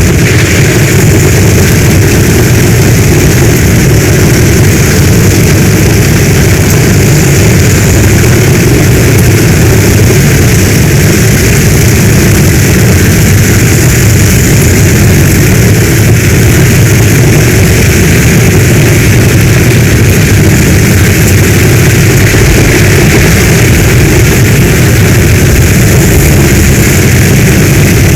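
Heavy storm rain pouring steadily, with a deep even rumble underneath and no breaks or single drops standing out.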